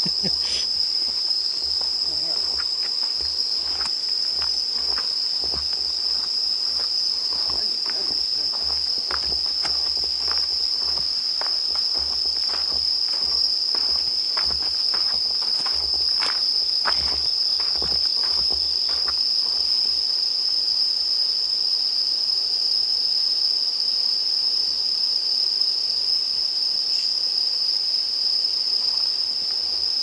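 A steady high-pitched chorus of crickets chirping, with footsteps on the path through the first half or so.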